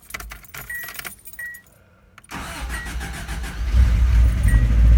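Keys jingling in the ignition with two short beeps, then the 1988 Subaru GL's EA82 flat-four engine starts a little over two seconds in and runs, growing louder about four seconds in. The owner hears a tick from the engine after start that she suspects may be lifter tick.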